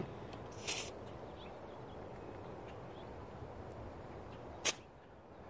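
Short hisses of compressed air from an air chuck on the fire-extinguisher tank's Schrader valve as the tank is pressurized to about 70 psi. A brief hiss comes about a second in, and a much louder, sharper burst comes near the end, over a faint steady background noise.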